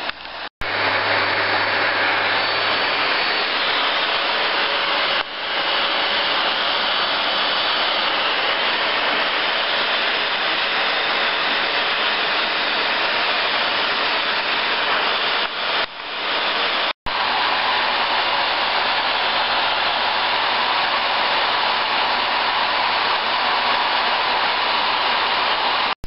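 Vacuum cleaner running steadily, a continuous whooshing motor noise, which cuts out twice for an instant, once near the start and once about two-thirds of the way through.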